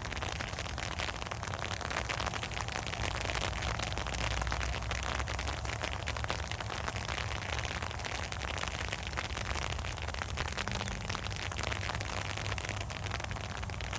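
Steady rain falling, a dense patter of many small drop ticks, over a low continuous rumble.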